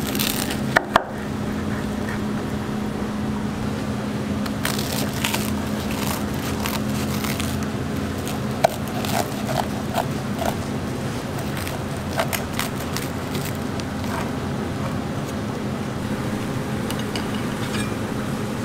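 A large kitchen knife cutting through crisp toasted bread and an egg omelette filling on a wooden cutting board: bouts of crunching and scraping, with knocks of the blade on the board, over a steady low hum.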